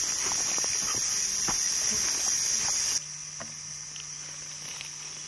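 Insects buzzing in a steady high-pitched chorus, with footsteps crunching on dry, burnt leaf litter over the first three seconds. About three seconds in the sound drops abruptly; the footsteps stop and the insect buzz goes on more faintly.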